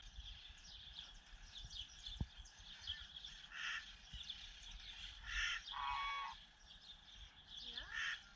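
Birds chirping and calling, among them chickens: many faint quick chirps throughout, with a few louder calls about three and a half, five and a half and six seconds in, and a falling call near the end.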